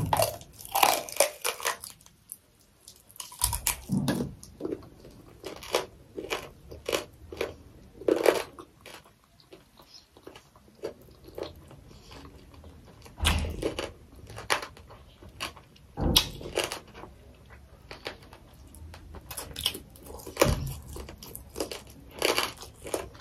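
A person biting and chewing a hard fried chicken foot close to the microphone: irregular crisp crunches, with a few heavier bites spread through.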